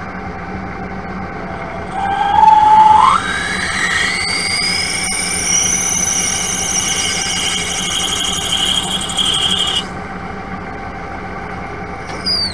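Metal lathe running while an 8 mm twist drill, its outer corner stoned to a radius, opens up a 7.6 mm pilot hole. About two seconds in, the cut sets up a loud squeal that climbs in pitch and holds for several seconds before stopping, with a short falling squeal near the end.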